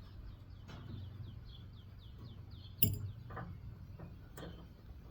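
One sharp metallic clink about three seconds in, followed by a couple of lighter taps, as parts and tools are handled while an appliance is taken apart for scrap. Behind it a bird chirps in a quick run of short falling notes, about four or five a second, that stops around the clink.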